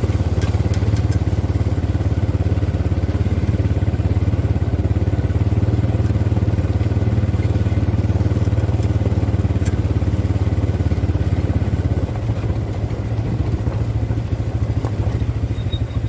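Quad bike engines running steadily at a low cruising speed, a loud, even drone that eases a little about twelve seconds in.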